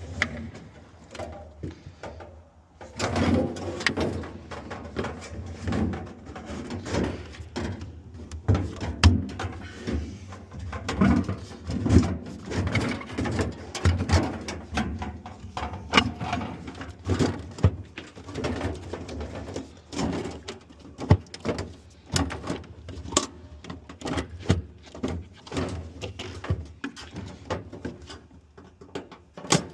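Irregular clicks, knocks and rattles of plastic and metal parts being handled and fitted into a refrigerator's freezer compartment while the evaporator fan assembly is reinstalled.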